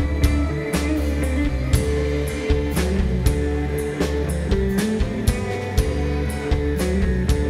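Rock band playing live without vocals: electric guitar and electric bass over a drum kit, with drum and cymbal hits on a steady beat about twice a second.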